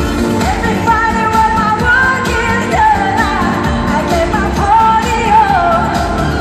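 Live pop music with lead singing over a full band backing, heard loud through an arena sound system from among the audience.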